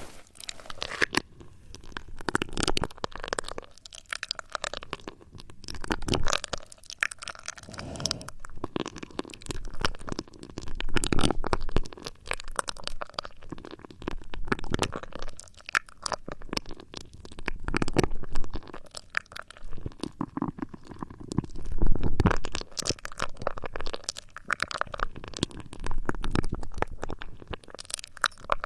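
Close-miked ASMR trigger sounds: irregular swells of rustling, scratching and crinkling rubbed right against the microphone, with many small clicks, coming every second or two.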